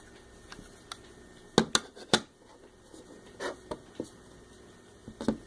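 A few light taps and clicks of toy pieces being handled, three sharper ones close together about one and a half to two seconds in and softer ones after.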